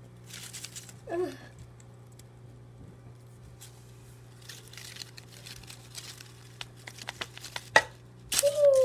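Artificial plastic leaves rustling and crinkling in short, scattered bursts as they are pushed through by hand, over a steady low hum. Near the end a loud voiced cry slides downward in pitch.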